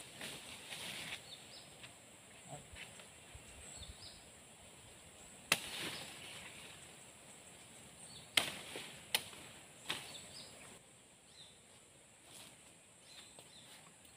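Leafy cut branches rustling as they are handled, with a few sharp snaps or knocks, four in all, the loudest about five seconds in.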